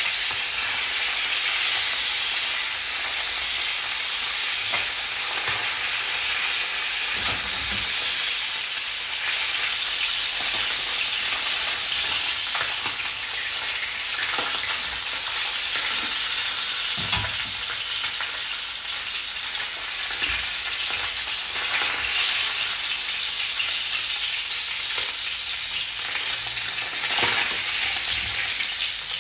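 Pieces of branzino fish sizzling steadily as they shallow-fry in hot oil in a frying pan. A spatula knocks and scrapes against the pan a few times as the pieces are turned.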